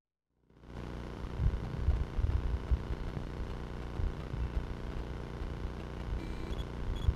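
Trail camera recording cutting in about half a second in: a steady electronic hum from the camera with irregular low rumbles and knocks on the microphone, and faint regular high ticks near the end.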